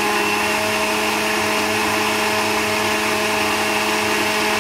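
Countertop electric blender running at one steady speed, blending a fruit-and-yogurt smoothie, with a steady motor hum and whine.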